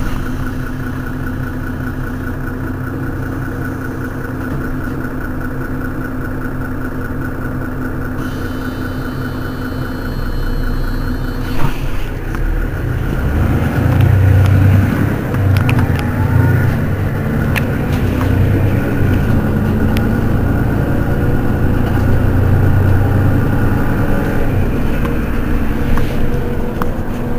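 Mercedes-Benz Citaro city bus engine idling at a standstill; about twelve seconds in the engine note grows louder and heavier, and stays up to the end.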